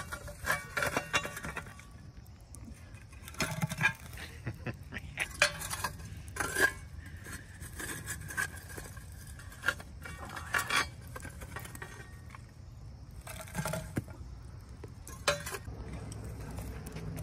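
Intermittent metallic clinks and short clatters of camp cookware and coals being handled, with coals set on top of the lid to brown biscuits.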